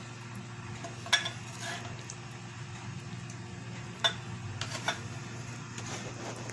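Wooden spoon knocking and scraping against a steel pot and a glass serving dish while curry is spooned out: sharp knocks about a second in, at about four seconds and just before five, with fainter scrapes between, over a steady low hum.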